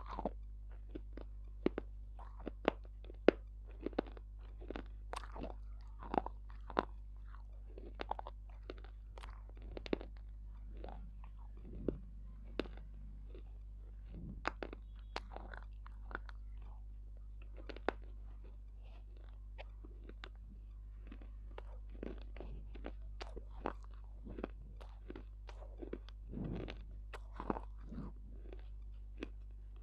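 Close-miked chewing of something crunchy: sharp, irregular cracks and crunches, several a second, with a steady low hum underneath.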